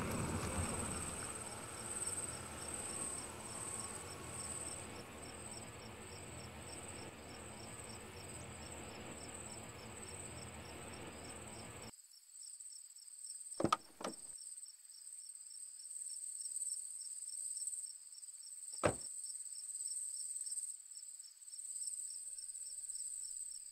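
Crickets chirping steadily while a car's engine runs; the engine noise stops abruptly about halfway through. Then two car doors shut a few seconds apart, the first with a double knock.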